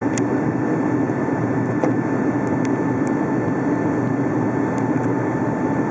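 Steady roar of engines and airflow inside the cabin of a Boeing 757-200 in flight, with a faint steady whine above it.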